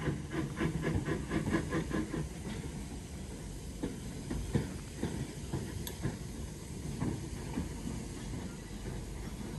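Small steam tank locomotive moving slowly through the yard. A quick rhythmic beat, about five a second, runs for the first two seconds or so, then gives way to a steady low rumble with hiss and scattered clicks and knocks.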